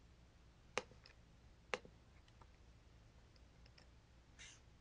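Two sharp computer mouse clicks about a second apart, then a few faint ticks, in near silence.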